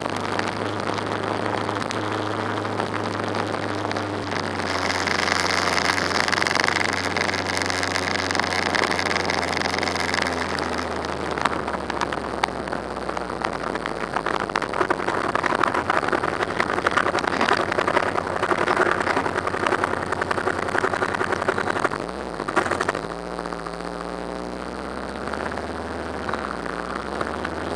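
Motorcycle engine running steadily under way, heard from an onboard camera with wind and road noise and the hum of surrounding scooter traffic. A steady high whine sounds for several seconds near the start, and about twenty-two seconds in the engine note drops and then climbs again.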